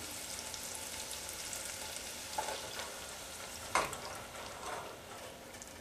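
Butter sizzling in a stainless steel saucepan, with a single sharp knock about four seconds in. The sizzle fades near the end as whipping cream is poured into the hot butter.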